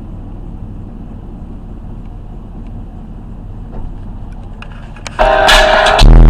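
Truck idling, a low steady rumble heard inside the cab. About five seconds in, the truck's stereo cuts in with very loud, bass-heavy music, the deep bass clipping.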